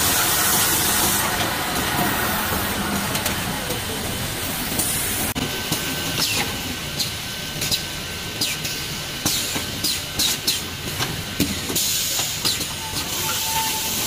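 Automatic cable coiling and strapping machine running: a steady mechanical noise with bursts of air hiss from its pneumatic cylinders. From about five seconds in, a string of sharp clicks and knocks joins it.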